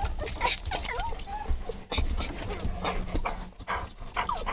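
Excited dogs whining, with short wavering whimpers and quick snuffling, panting breaths.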